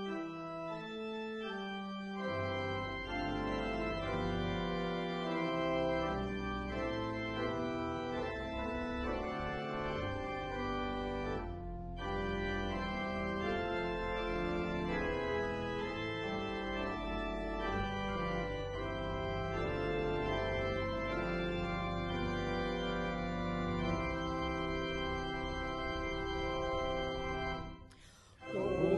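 Organ playing slow held chords, with deep bass notes coming in about two seconds in. The music breaks off briefly near the middle and stops just before the end.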